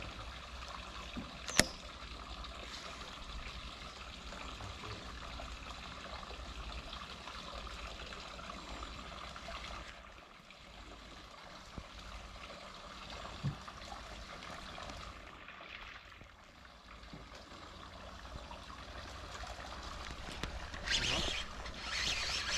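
Water trickling and lapping against a boat's hull. A sharp click comes about a second and a half in, a soft knock about midway, and a louder rustling stretch near the end.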